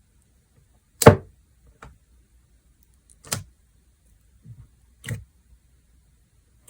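A series of short, sharp knocks on a hard surface, spaced one to two seconds apart, the first, about a second in, the loudest.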